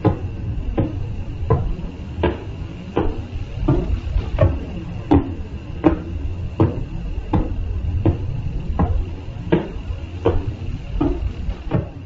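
Radio signal of the pulsar PSR B0329+54 turned into sound: a sharp regular tick-thump about every three-quarters of a second, one for each turn of the spinning neutron star, over a steady rushing radio noise with a faint high tone.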